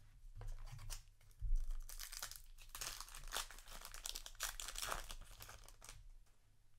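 Yu-Gi-Oh! booster pack wrapper being torn open and crinkled, with dense crackling rips from about a second and a half in until near the end.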